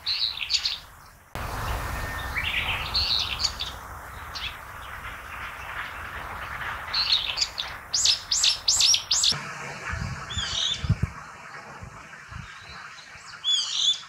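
Brown-eared bulbul giving its harsh call notes, a shrill "hee" run into a scratchy "juku-juku", repeated in several bouts. A quick run of rising shrill notes comes about 8 s in, and two drawn-out squealing "hee-ee" calls come near the end.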